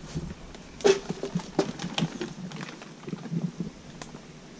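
Plastic bag full of stripped sound-deadening sheets crinkling and rustling as it is set down on a dial bathroom scale, with a few sharper crackles about one and two seconds in, then fading to faint rustles.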